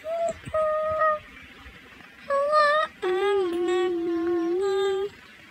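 A person humming a slow tune close by, in a few long held notes with pauses between the phrases; the longest note is held for about two seconds near the end.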